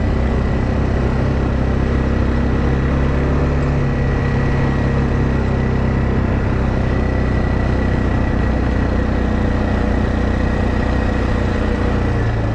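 ATV engine running steadily while riding, a loud even drone with a low engine note that steps up in pitch near the end.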